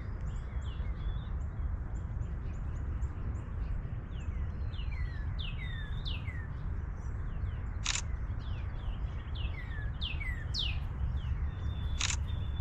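Many small birds chirping, a busy chorus of short calls that slide down in pitch, over a steady low background rumble. Two sharp clicks stand out, about eight seconds in and again near the end.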